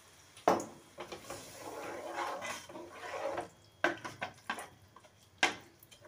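Metal spoon stirring and scraping a thick spice paste in a steel pot, with a few sharp clinks as it knocks the pot. The loudest clink comes about half a second in and others near the end. The masala is being fried with a splash of water added so it does not burn.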